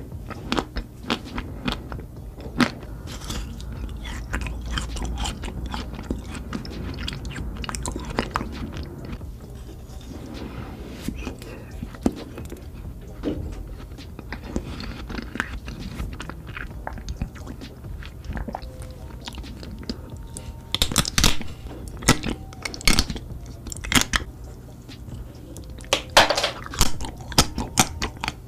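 Close-miked ASMR eating of chocolate-coated ice cream bars: crackling bites through the chocolate shell and chewing. The crunching is loudest a little past twenty seconds in and again near the end, over a low steady hum.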